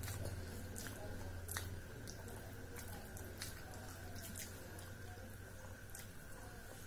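Close-up eating sounds: wet chewing and lip-smacking clicks at irregular intervals, with the soft squish of rice and curry being mixed by hand, over a low steady hum.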